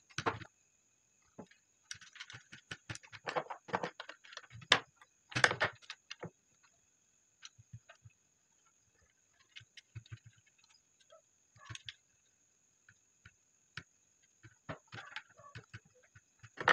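Small clicks, taps and scrapes of hands and a small screwdriver working wires into the terminal screws of switches on a wooden switchboard. Busy for the first few seconds, then sparse, with another short flurry near the end.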